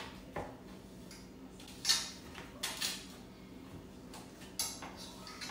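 Sharp clinks and knocks of the oven door's glass pane against its metal frame as the door is put back together. There are about five separate knocks, the loudest about two seconds in.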